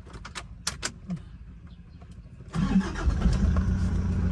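A few light clicks, then about two and a half seconds in a van's engine starts and settles into a steady idle.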